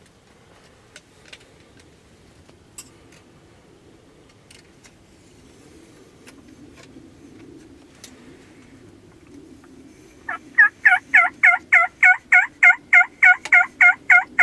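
Wild turkey yelping: starting about ten seconds in, a loud, even run of about fifteen yelps, roughly four a second, each note dipping and rising in pitch.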